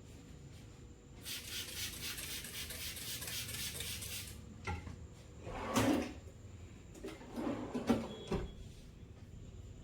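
Head massage: hands rubbing fast and hard over the scalp and hair for about three seconds, then a few knocks and thumps, the loudest about six seconds in.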